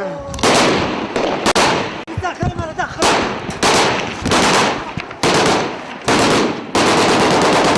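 Bursts of automatic gunfire, about seven in a row, the longest near the end, with voices heard briefly between bursts.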